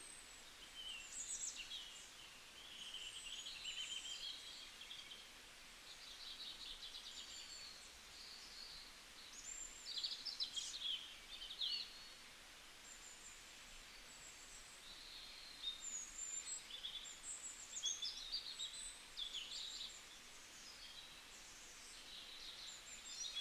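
Several birds singing and calling at once: high chirps, short trills and quick whistled glides overlapping over a faint steady hiss.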